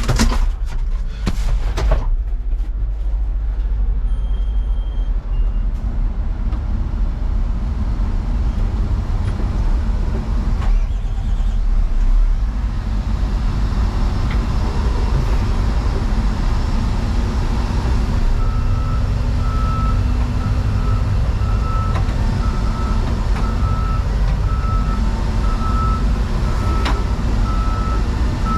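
Heavy diesel engine running with a steady low rumble. From about two-thirds of the way in, a backup alarm beeps at an even pace, about once a second, as a backhoe reverses.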